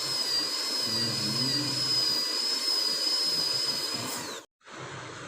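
High-speed dental air-turbine handpiece running at a steady, high-pitched whine over a hiss of air and spray, as used to prepare a tooth for a composite filling. About four seconds in the whine falls in pitch as the turbine spins down, then the sound cuts off abruptly, leaving a quieter steady hiss.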